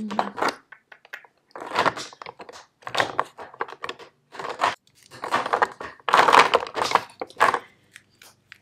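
Makeup tubes and compacts rattling and knocking against each other and a plastic drawer organizer as a hand rummages through them, in a string of irregular bursts.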